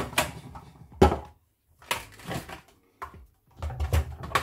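Hard plastic clunks and clicks from a Sage Kitchen Wizz Pro food processor's feed chute, pusher and bowl lid being lifted off and handled after a slicing run. There are about half a dozen separate knocks with short pauses, bunched more closely near the end.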